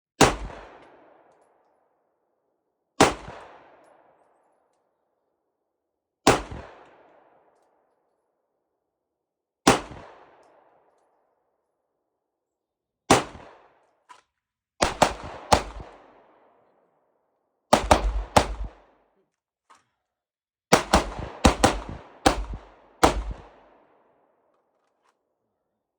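Pistol shots on a range, each a sharp crack with a short echoing tail. Five single shots come about three seconds apart, then two quick pairs, then a faster string of about six shots.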